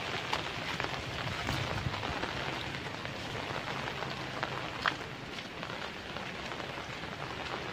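Typhoon rain falling on wet ground and foliage, a steady hiss with scattered sharp taps of drops close by, one louder about five seconds in.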